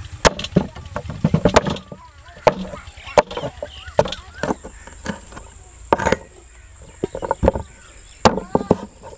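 A steel cleaver chopping firm green teoon fruit into chunks on a wooden cutting board. Sharp, irregular knocks come in quick clusters, with short pauses between them.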